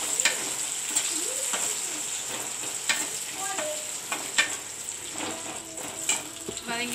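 Cashews and raisins sizzling as they fry in ghee in an aluminium kadai, stirred with a steel ladle that scrapes and clicks against the pan now and then.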